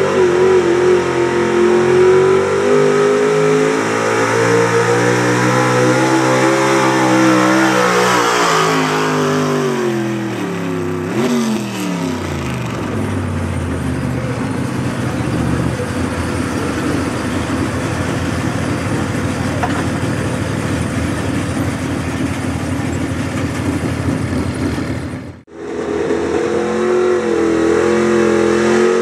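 Small-block V8 pickup engine running at high revs under load while pulling a weight-transfer sled, its pitch sliding down as the truck slows and stops, then a lower, unsteady rumble at low revs. Near the end the sound cuts off suddenly and another small-block pulling truck is heard at high revs.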